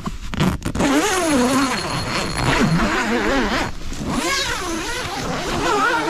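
Gazelle T3X tent's door zipper being pulled open in two long strokes: a buzzing whose pitch wavers up and down with the speed of the pull, after a few clicks at the start.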